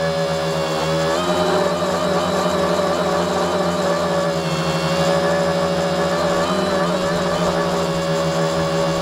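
A tricopter's electric motors and propellers running with a steady whine, heard from a camera mounted on the aircraft. The pitch steps up slightly about a second in and sags and recovers around the middle.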